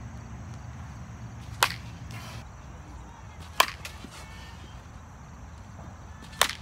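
A baseball bat hitting a pitched ball three times, each contact a sharp crack, about two to three seconds apart.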